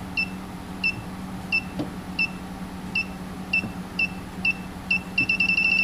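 Southwire circuit breaker finder receiver beeping as it is passed along a row of breakers. The short high beeps come at an even slow pace, speed up, and then turn into a fast run of beeps near the end: the receiver has found the breaker that carries the transmitter's signal. A low steady hum sits underneath.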